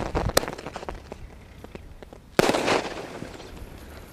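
12-shot aerial firework cake firing: a shell's crackle dies away, a sharp bang comes about half a second in, and another shell bursts about two and a half seconds in with a dense crackle that fades over a second.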